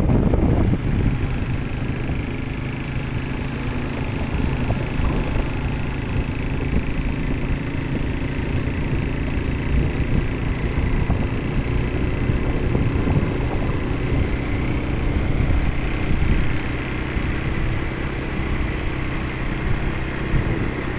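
Quad bike (ATV) engine running steadily as it is ridden across sand, with a low rumble beneath its hum.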